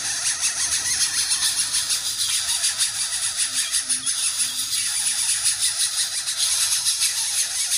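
A steady, dense, high-pitched buzzing hiss with a fine rapid pulse. In the middle, four faint short low hoots follow one another.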